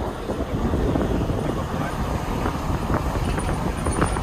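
Car driving along a rough rural road, heard from inside the cabin: a steady rumble of engine, tyres and wind, with a few light knocks and rattles in the second half.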